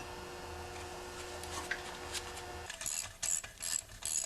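A socket ratchet wrench clicking in repeated strokes about every half second, starting nearly three seconds in. Before that there is only a steady low hum.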